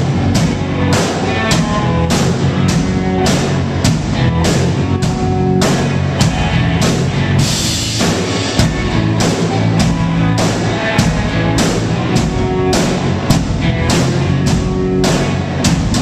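Live rock band playing loud: two electric guitars over a drum kit keeping a steady, driving beat.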